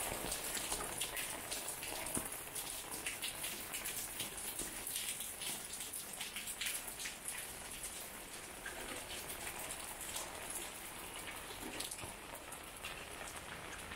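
Steady rain, with many separate drops hitting hard surfaces and puddles close by.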